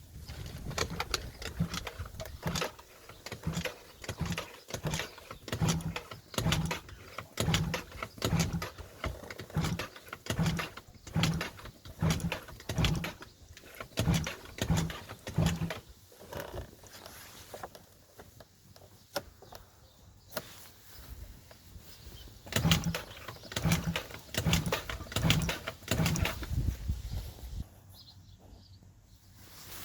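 Yamaha Jog scooter engine being cranked over and over without catching, about two strokes a second. About halfway through there is a pause of several seconds, then a second bout of cranking. The engine won't start after winter storage.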